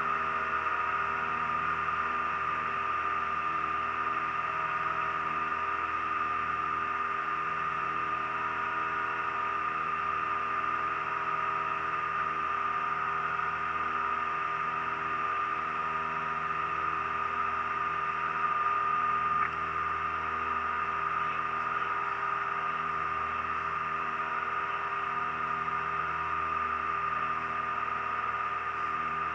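Piper Turbo Aztec's twin turbocharged Lycoming six-cylinder engines and propellers droning steadily in cruise descent, heard inside the cockpit, with a strong high steady tone over the engine hum and airflow hiss. The loudness swells briefly about two-thirds of the way through.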